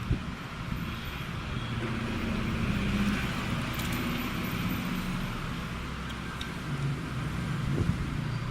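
Steady background rumble of road traffic, with a few faint clicks.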